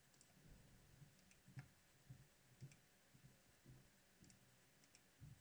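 Near silence: quiet room tone with a few faint, scattered clicks of a computer mouse.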